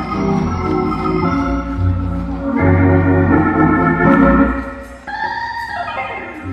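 Hammond organ played in gospel style: sustained full chords over a bass note, changing every second or so. The loudest, fullest chord is held in the middle, and the sound dips briefly about five seconds in before the chords resume.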